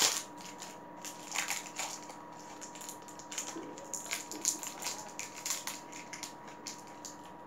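Plastic candy wrapper crinkling and crackling in irregular bursts as it is handled and opened, loudest at the very start.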